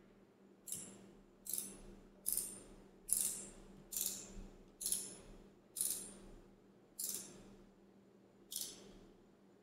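Hand ratchet clicking through about ten back-and-forth strokes, roughly one a second, the pawl rattling on each return swing, as it snugs a spark plug into the cylinder head.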